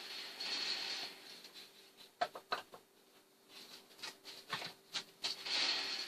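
Light metal clicks and scratchy scraping as a chainsaw's chain, bar and side cover are handled and fitted together.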